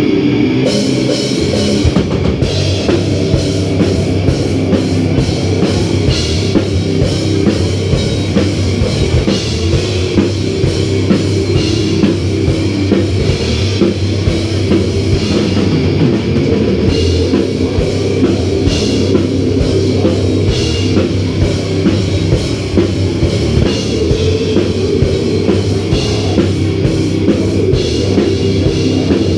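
Live heavy metal band playing loud, with fast, dense drumming and cymbals over distorted guitars.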